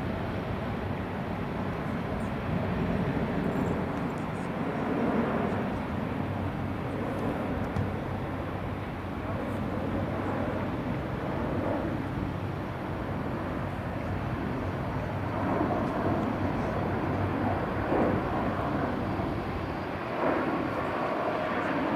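Embraer KC-390 jet transport's twin IAE V2500 turbofans heard in flight as it banks through a display turn: a steady engine noise with slow swells, growing louder near the end as the aircraft turns toward the listener.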